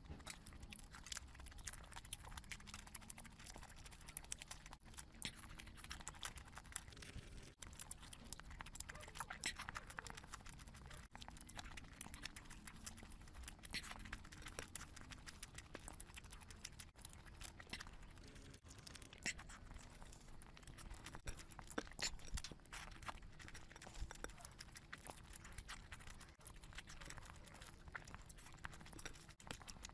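Close-miked eating sounds of a person eating a curry and biryani meal: steady wet chewing with many small clicks and crackles.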